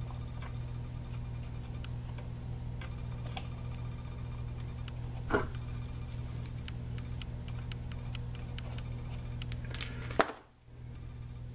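Small clicks and taps of a hand tool working among the wiring of a metal power-supply chassis, over a steady low electrical hum. A louder knock comes about five seconds in, and a sharp click near the end, after which the hum briefly drops away.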